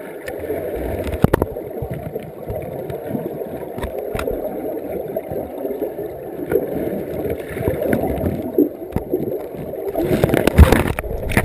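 River current heard underwater through a GoPro's waterproof housing on the riverbed: a steady, muffled gurgling churn with occasional sharp clicks. It grows louder and more turbulent near the end.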